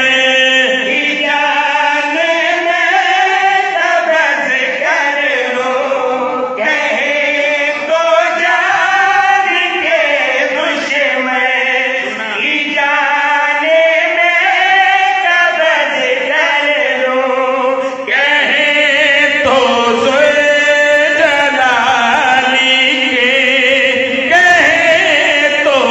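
A man's voice chanting devotional verse in the melodic style of a qasida through a microphone and loudspeakers. It holds long notes that slowly rise and fall, with a new line starting abruptly twice.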